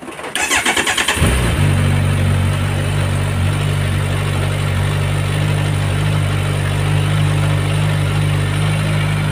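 Kawasaki Ninja 1000SX inline-four with its stock exhaust canister removed, cranked on the starter for about a second until it catches, then idling steadily.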